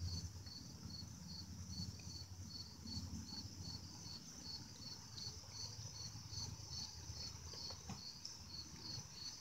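Insects chirping faintly in an even, fast pulse of about five chirps a second over a steady high insect hum.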